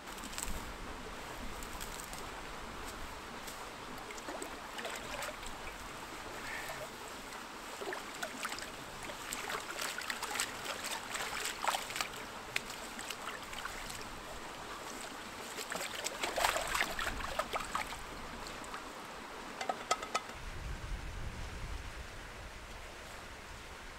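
Small stream running steadily, with splashing, sloshing and light knocks as a pan is dipped and rinsed in the water, busiest in the middle of the stretch. A low rumble comes in about twenty seconds in.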